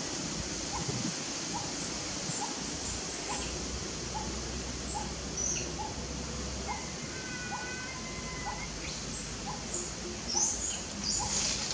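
Birds calling over a steady outdoor hiss: a short chirp repeating roughly once a second, a brief call around the middle, and a few quick high chirps near the end.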